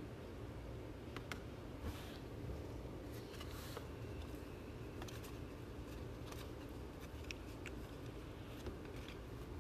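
Trading cards being handled: soft rustling and a scattering of light clicks from cards and packaging, over a low steady room hum.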